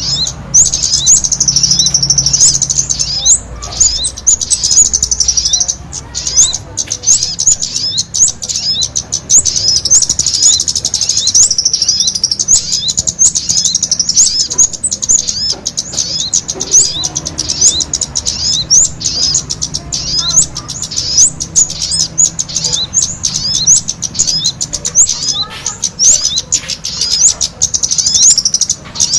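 Dense, rapid, high-pitched chirping of small birds, non-stop: a bird-lure (pikat) recording of sogon calls combined with a noisy kemade chatter.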